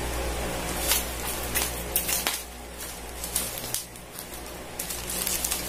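Thin plastic packaging crinkling and rustling in short, scattered crackles as it is snipped with scissors and pulled open, over a steady low hum.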